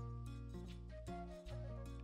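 Background music: held melody notes over a sustained bass line that changes note every half second to a second.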